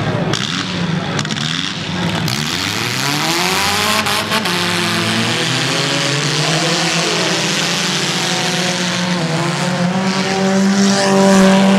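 Engines of several small demolition-derby cars running and accelerating on a dirt track. The engine pitch rises about two seconds in, and one car gets louder near the end as it comes close.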